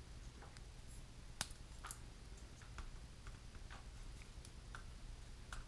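Plastic ball links being pressed onto the balls of a metal swashplate on a Blade 230 S micro helicopter, giving a few light, scattered clicks. The sharpest click comes about a second and a half in.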